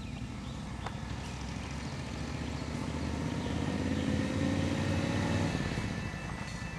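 1942 Harley-Davidson WLA's 738cc flathead V-twin running as the motorcycle approaches. The revs climb for a couple of seconds, then drop off about five and a half seconds in.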